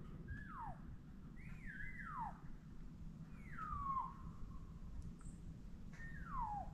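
Elk cow mews: four short, high whistled calls, each sliding down in pitch, spread over several seconds, over a low steady rumble.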